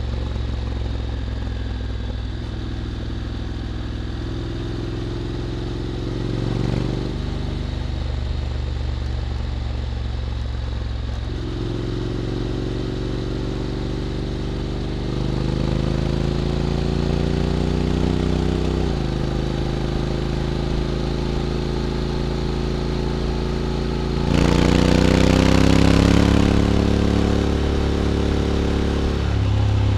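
Honda X-ADV 750 parallel-twin engine through an SC-Project titanium slip-on exhaust, under way at low speed. The engine note climbs slowly and drops suddenly at two gear changes, then surges louder under harder acceleration with a rush of wind near the end.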